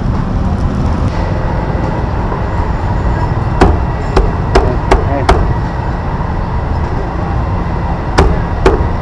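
A cleaver chopping on a wooden block: a run of about five sharp knocks roughly half a second apart a few seconds in, then two more near the end, over a steady low rumble of street noise.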